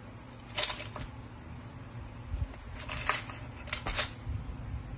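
Plastic vacuum flask being handled and turned over, making short clicks and rattles in a few separate bursts.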